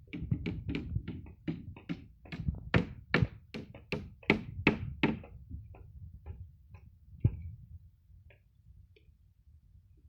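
Repeated sharp knocking blows, about three a second for the first five seconds, then slowing to a few spaced knocks and fading to faint taps.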